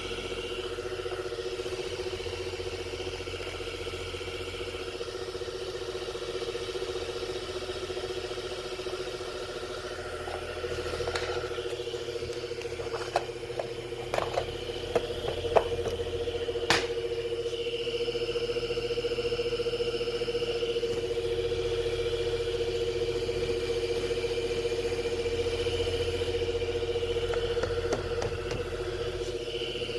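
Goar V60 electric fan running with a steady motor hum. A few sharp clicks come near the middle.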